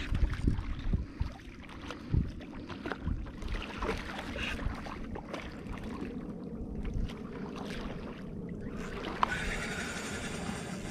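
Wind buffeting the microphone over water lapping against a kayak's hull, with scattered knocks and bumps from the boat and the angler's handling. About nine seconds in comes a sharp click, followed by a steady hiss.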